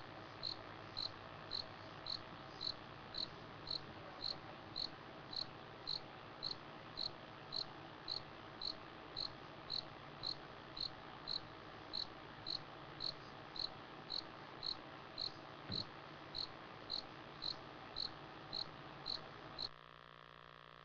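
A cricket chirping steadily, about two short chirps a second, over a low steady hum. Chirps and hum drop away sharply about a second before the end.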